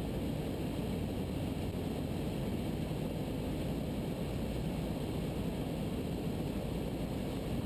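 Ikarus C42 microlight's engine and propeller droning steadily in flight, heard through the headset intercom feed as an even hiss with a low hum underneath.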